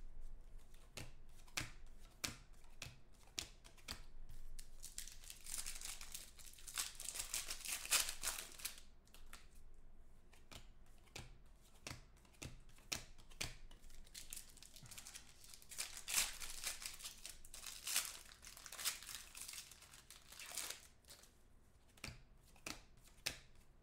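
Foil trading-card pack wrappers crinkling and tearing, with short spells of rustling and small clicks as the cards are handled and flicked through.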